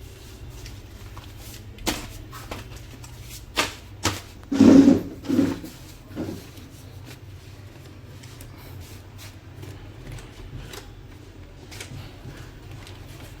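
A stack of printer paper being handled and loaded into an HP LaserJet M1005, with several clicks and knocks. The loudest is a short run of thumps about five seconds in, over a faint low hum.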